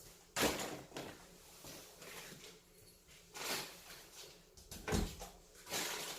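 Four short knocks and scrapes, as of boards being handled and set in place. The loudest comes about half a second in, and the others fall near the end.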